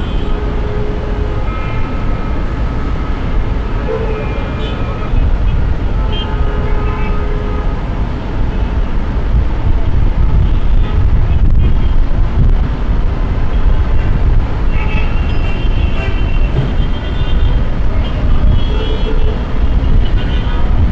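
City street traffic: a steady rumble of passing vehicles, with short car-horn toots here and there.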